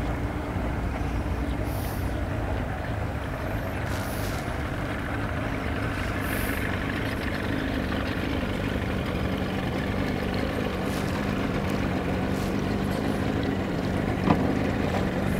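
Suzuki outboard motor on a small center-console boat running at idle speed, a steady low hum that grows a little louder near the end. A short knock about fourteen seconds in.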